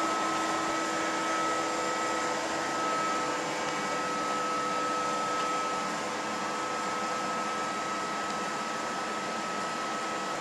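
Okuma LB 200-6 CNC lathe running: a steady machine hum and whine with several constant tones on top. A lower tone fades out about two seconds in.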